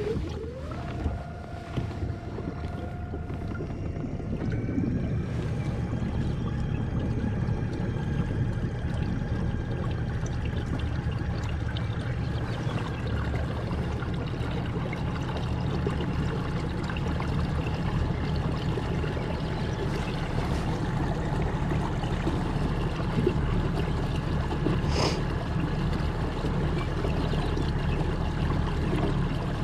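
Kayak travelling across the water under power: a small motor's whine rises in the first second and then holds steady, over a low rumble and the rush of water along the hull.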